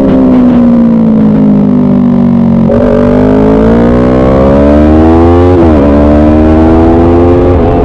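Motorcycle engine heard from onboard at speed on a track: the engine note falls for nearly three seconds under braking, jumps up sharply as a gear goes down, then climbs under throttle with two brief dips as it shifts up, one about two-thirds of the way in and one near the end.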